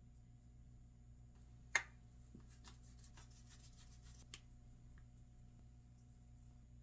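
Toiletries being handled at a bathroom counter: one sharp click, then a quick run of faint ticks and a smaller click, over a faint steady hum.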